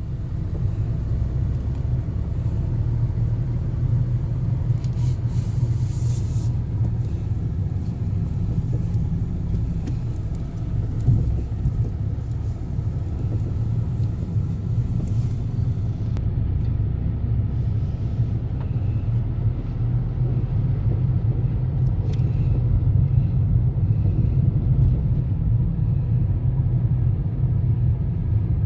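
A car driving, heard as a steady low rumble of road and engine noise.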